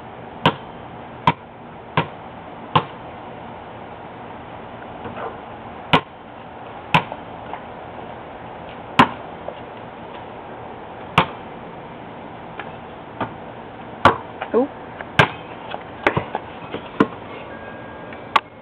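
A basketball bouncing on a concrete pad, a series of sharp bounces. The first few come evenly about three-quarters of a second apart like a dribble, and the later ones come at irregular gaps.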